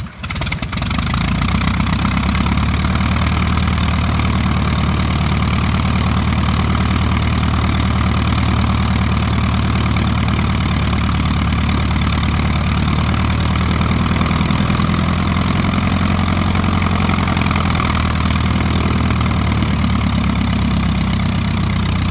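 Freshly rebuilt Lycoming O-235 four-cylinder air-cooled aircraft engine catching about a second in on a test stand, then running steadily.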